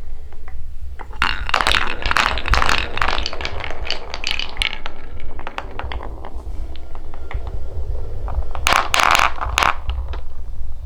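Coloured balls running down a wooden marble run, clicking and clattering against the wooden track. A dense run of clatter comes about a second in and lasts a few seconds, scattered ticks follow, and another burst of sharp clicks comes near the end, over a steady low rumble.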